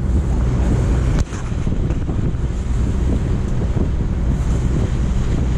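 Wind buffeting the microphone over open water, a steady loud rumble, with one short knock about a second in.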